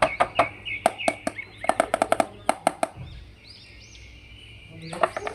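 Background music with a fast, evenly clicking beat and short chirping synth notes. It drops out for about two seconds in the middle, then comes back.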